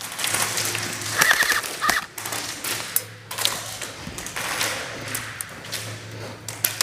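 Airsoft guns firing: irregular runs of sharp clicks and taps, with the rustle of the player's gear as he moves.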